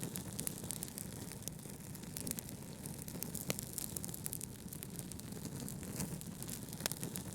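Fireplace fire crackling, with scattered sharp pops and snaps over a steady low rumble of brown noise.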